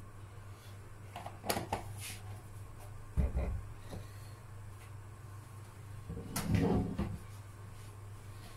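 Kitchen handling noises over a steady low hum: a couple of light clicks in the first two seconds, a thump about three seconds in, and a louder knock with a low rumble around six and a half seconds.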